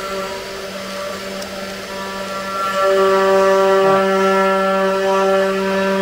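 Sainsmart Genmitsu 4040 Pro CNC router's 500-watt spindle whining steadily as a 60-degree V-bit carves letters into plywood, getting louder about three seconds in. The noise comes from the cutter rather than the machine vibrating: a cheap, poorly ground V-bit with only one real cutting face doing the cutting.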